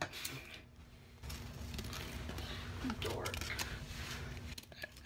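Fabric rustling and tearing as the law tag is pulled off a pillow: a steady rasping noise that starts about a second in and lasts about three and a half seconds.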